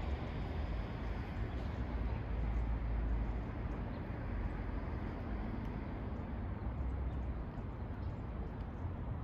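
Steady outdoor city ambience: a constant hum of traffic with a low rumble underneath and no distinct events.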